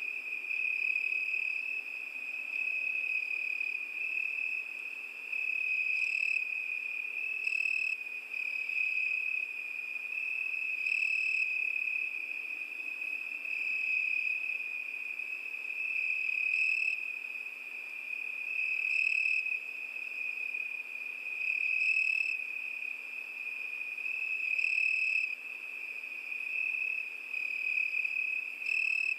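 Crickets chirping in a steady, high-pitched continuous trill, swelling louder every two to three seconds.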